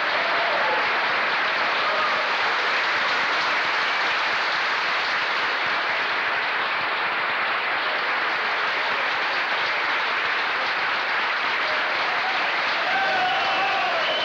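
Audience applauding, steady and unbroken, starting as the singing ends.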